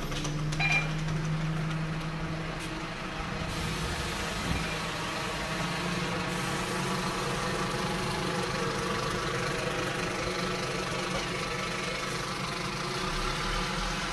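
Scania K230UB city bus's rear-mounted five-cylinder diesel engine idling steadily at a stop.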